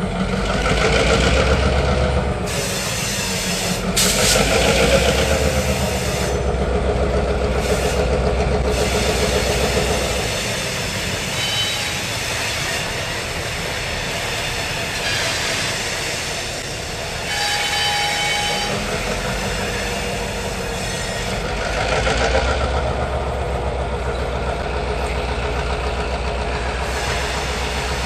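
Diesel switcher locomotive running as it moves freight cars, its engine sound swelling a few times, with brief thin high squeals from the wheels in the middle stretch.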